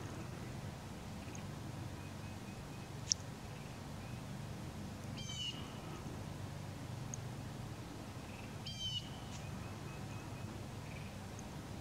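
Two short, mewing bird calls about three and a half seconds apart, over a steady low background rumble, with a single sharp high click about three seconds in.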